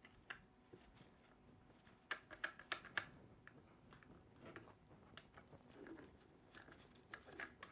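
Faint, scattered plastic clicks and taps from handling a filament spool on the AMS Lite, with a quick run of about five clicks a couple of seconds in and soft rustling afterwards.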